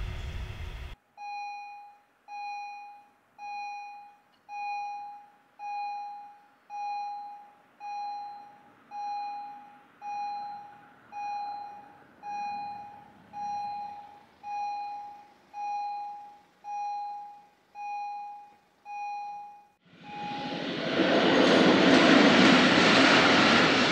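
Level-crossing warning bell striking about once a second, each strike a single ringing tone that fades before the next. Near the end the bell stops and a freight train's locomotive reaches the crossing with a loud, broad rumbling noise that drowns everything else. A burst of passing-train noise cuts off about a second in.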